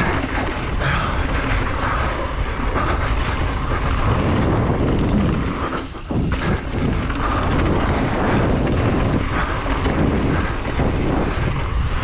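Downhill mountain bike ridden fast on a dirt trail: a loud, steady rush of wind on the bike-mounted or helmet camera's microphone mixed with tyre and trail noise. There is a brief lull about six seconds in.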